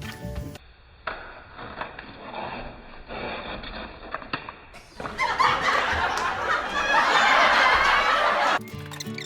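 Laughter, quieter at first, then a louder stretch of laughing from about five seconds in that cuts off abruptly shortly before the end.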